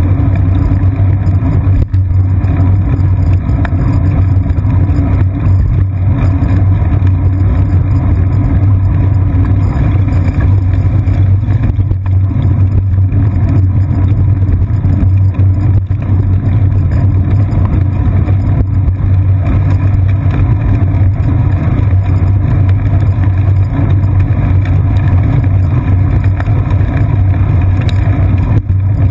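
Steady low rumble of riding a bicycle, picked up by a camera mounted on the seat post: wind and road vibration through the mount, continuous and unchanging.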